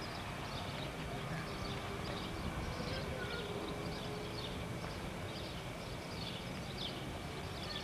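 Steady low rumble and hiss of wind and handling noise on an old camcorder microphone, with many faint, short high chirps scattered irregularly through it.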